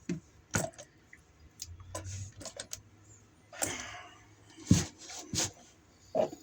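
Scattered clicks, taps and short scrapes of a receptacle cover plate being fitted over the outlet and fastened, with the sharpest knock a little under five seconds in.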